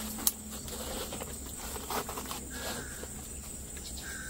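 Handling of a white mesh fruit bag being fitted over a jackfruit, soft rustling with a sharp click about a quarter second in. Behind it a steady high insect drone and short chirps repeating every second and a half or so.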